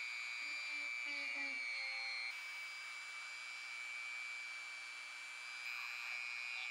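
Handheld rotary tool running at speed with a felt polishing bob: a steady high-pitched whine, as the bob is loaded with polishing compound and worked against a small metal pin. The whine shifts a little in tone about two seconds in and again near the end.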